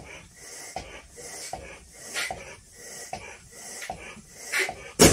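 A 14-inch Belbal latex balloon being blown up by mouth, with a short breath about every three-quarters of a second, then bursting with a sharp bang near the end.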